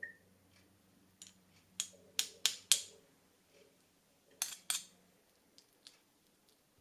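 Sharp clicks or snips from kitchen work: a run of five over about a second and a half, then two more close together a little past the middle. A brief high beep sounds at the very start.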